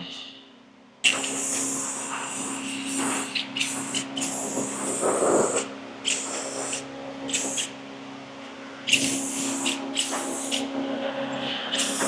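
Flux-core wire welding with a Hobart Handler 140: the arc starts abruptly about a second in and runs in several stretches with short pauses between beads. A steady low hum runs underneath.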